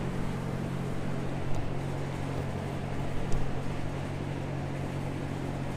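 A steady low machine hum, with a couple of faint clicks.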